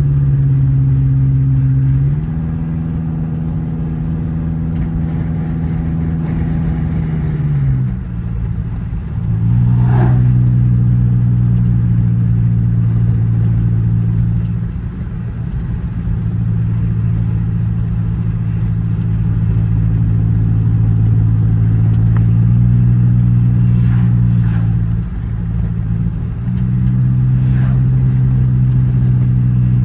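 Honda Accord's engine droning steadily inside the cabin at cruising speed, with road noise. Its pitch shifts a few times as the throttle changes, dipping about eight seconds in and again near 25 seconds. There is a single sharp knock about ten seconds in.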